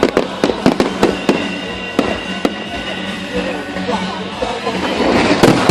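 Aerial fireworks bursting: a quick run of sharp bangs and cracks over the first few seconds, then a louder cluster of bangs near the end, with music and crowd voices underneath.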